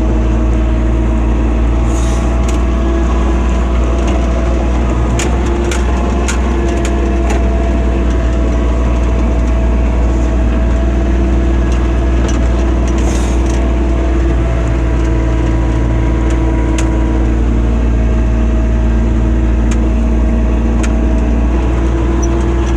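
ATV engine running at a steady pitch while riding, over a low rumble, with scattered sharp clicks and knocks, most of them clustered about five to eight seconds in.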